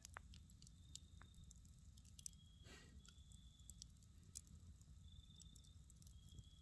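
Faint crackling of a wood campfire burning in a fire pit: soft ticks and pops at irregular intervals over a low hiss.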